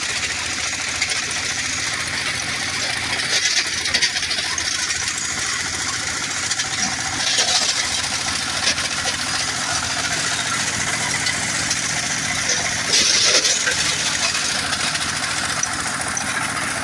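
Stone-crushing sand-making machine running, its motor droning steadily under a constant rattle and clatter of river stones being ground into sand. The clatter swells in a few louder bursts: about three and a half seconds in, around seven seconds, and again near thirteen seconds.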